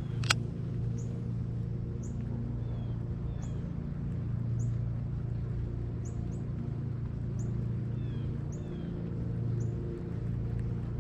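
A small bird calling with short, high chirps repeated about once a second, some falling in pitch, over a steady low hum. A single sharp click sounds about a third of a second in.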